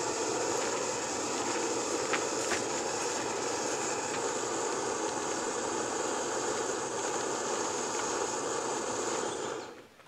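Small backpacking canister stove burner running with a steady rushing hiss under a pot, which dies away near the end as the flame is turned down.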